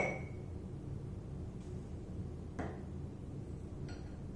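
Light clinks of kitchenware against a bowl: a ringing clink at the start, another about two and a half seconds in, and a faint tick near the end, over a steady low hum.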